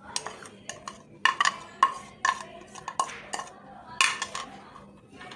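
A spoon knocking and scraping against a steel tray as gram flour is added, with hands mixing pakora batter of onion and potato in it: irregular sharp clinks and scrapes.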